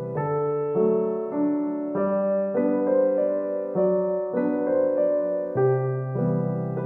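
Background music: a gentle solo piano piece, notes and chords changing about every half second.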